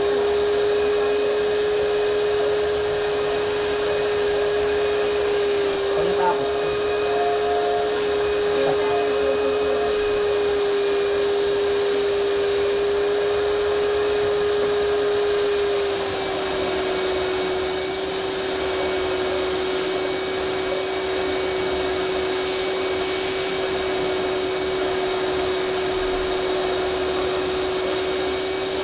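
Vacuum cleaner running with a steady motor whine, dropping slightly in pitch and loudness a little past halfway.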